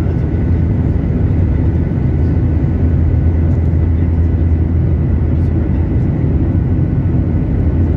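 Jet airliner's turbofan engines and airflow heard inside the cabin in flight: a steady, deep rumble with a faint steady high tone above it.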